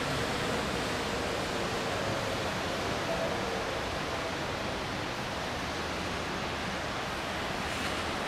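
City traffic heard from above: a steady, even wash of engine and tyre noise from congested streets, with no single vehicle standing out.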